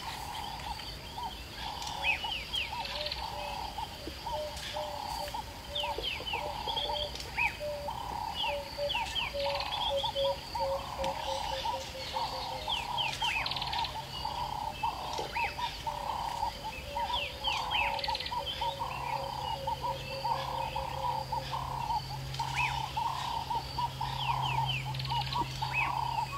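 Birds calling in the bush: a low note repeated about once a second throughout, a rapid lower trill through the middle, and many short high chirps, over a faint steady low hum.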